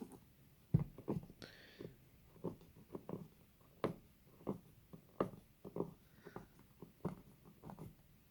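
Hands handling a smartphone's retail box and packaging: a string of light knocks and taps, irregular and about two a second. There is a brief rustle or scrape about one and a half seconds in.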